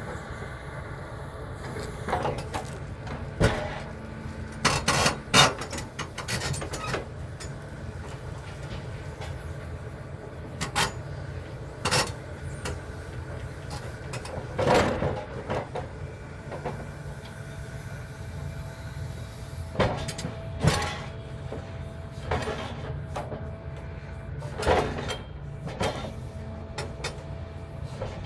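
Hitachi tracked excavator's diesel engine running steadily while its grapple knocks and clanks against metal tube sections of demolition debris, with a dozen or so sharp metallic knocks spread through. A steady whine comes in a little past halfway.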